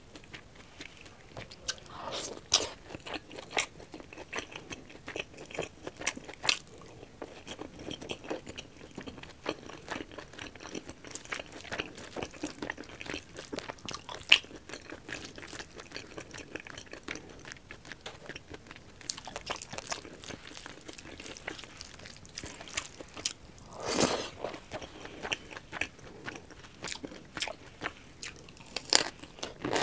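Close-miked eating sounds: chewing, smacking and crunching as rice and pork curry are eaten by hand, in many short sharp bursts. A louder crunchy bite comes about two-thirds of the way through, and near the end a bite into a raw cucumber slice.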